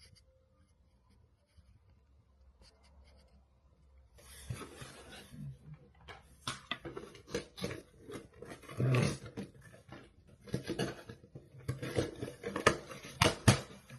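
Cardboard and plastic packaging rustling and crinkling as a battery box is opened and unpacked, with many sharp clicks and crackles starting about four seconds in.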